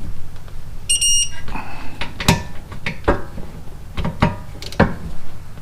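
Metal clinks and knocks of tools and brake parts being handled, with a short high electronic beep about a second in and a steady low hum underneath.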